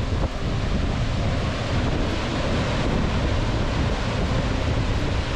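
Steady rushing of a tall waterfall, Montmorency Falls, with wind buffeting the microphone.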